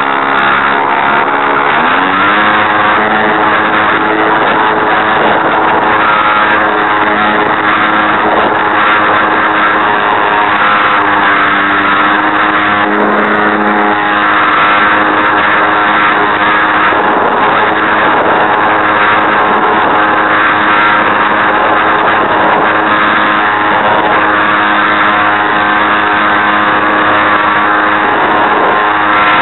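Geared electric motor and propeller of an RC Super Cub airplane heard from its onboard camera, a steady loud whine with a buzzing, rattly edge from a gearbox that the owner calls broken. The pitch climbs within the first couple of seconds as the throttle comes up, then holds, and drops near the end.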